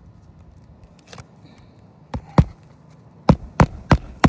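Hammer blows on a shingled roof: two quick strikes about two seconds in, then four more in a row about a third of a second apart near the end.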